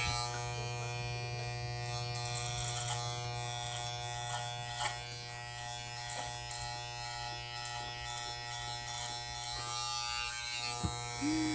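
Corded electric hair clippers buzzing steadily as they cut hair on the side of the head.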